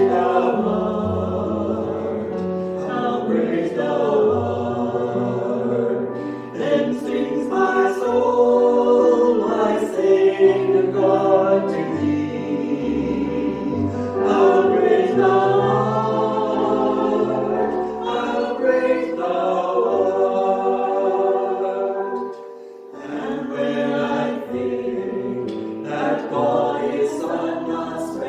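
Small group of voices singing a worship song together over instrumental accompaniment with a steady bass line, with a brief drop near the end between phrases.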